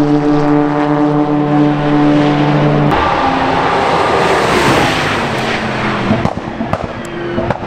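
Audi RS3 LMS TCR race car's turbocharged four-cylinder engine holding a steady note as it drives past. About three seconds in, the sound switches to a more distant race car passing, a rushing mix of engine and tyre noise that swells and fades.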